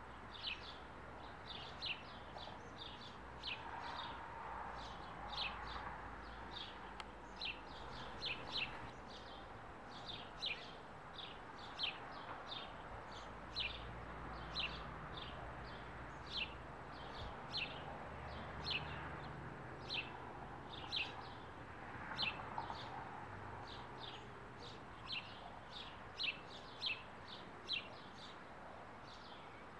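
A small bird chirping over and over: short, high, falling chirps, roughly one or two a second, over faint steady background noise.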